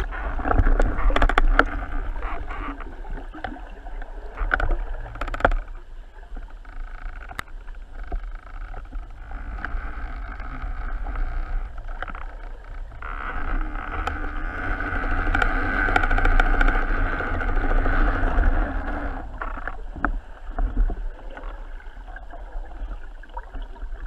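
Underwater sound picked up by a camera in a waterproof housing: a steady, muffled rush of water with a few sharp clicks and knocks, swelling louder for several seconds in the middle.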